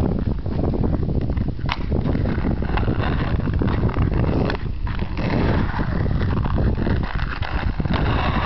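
Wind buffeting the camera microphone, a steady rumble, with a few sharp clicks, the clearest one about two seconds in.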